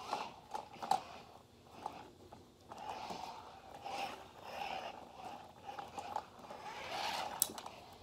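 Toy remote-control stunt car's small electric motor whirring in short on-and-off bursts as it drives over carpet, with a few light knocks and clicks.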